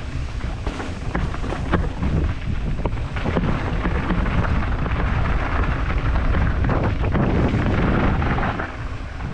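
Wind buffeting the microphone over the crunch of mountain bike tyres on a dirt trail, with frequent rattles and knocks from the bike over rough ground.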